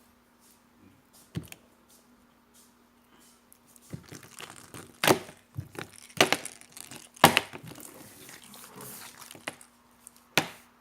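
Jiggly slime being worked by hand, giving sharp pops and crackles with a faint crinkling in between; the loudest snaps come about five, six, seven and ten seconds in.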